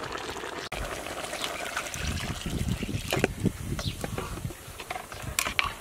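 Metal ladle stirring soup in an aluminium pot, the broth sloshing and dribbling, with a few sharp clinks of the ladle against the pot in the second half.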